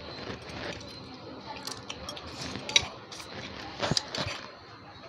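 Children eating spicy instant noodles: slurping strands, with forks clinking and scraping on metal plates. One sharp clink comes near the three-second mark, and a cluster of louder clinks follows about a second later.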